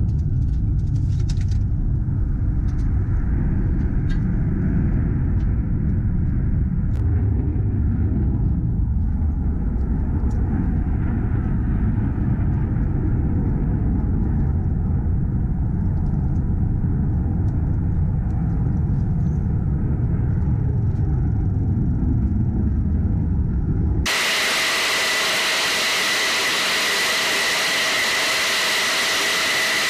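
A dense, steady low rumble with scattered small clicks at an F-16 flight line. About 24 s in it cuts to the steady, high-pitched whine of running jet engines.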